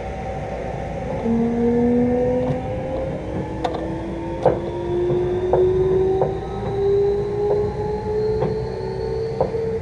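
Electric commuter train heard from inside the carriage as it accelerates away from a station. The traction motor whine climbs steadily in pitch, and from about a third of the way in the wheels clack over rail joints about once a second.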